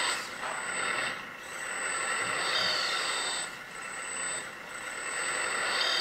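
Hydraulic pump and control valves of a LESU Aoue-BL71 RC backhoe loader whirring and hissing as the backhoe's boom is worked, swelling and easing off three times as the stick is moved. The pump is on a low setting.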